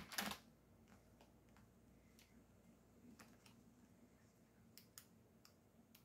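Near silence, with a brief rustle of paper right at the start and a few faint scattered ticks from hands handling a small vinyl transfer.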